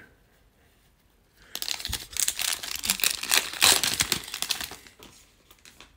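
A Panini Prizm trading-card pack's foil wrapper being torn open and crinkled by hand, a dense crackling rustle that starts about a second and a half in and dies down near the end.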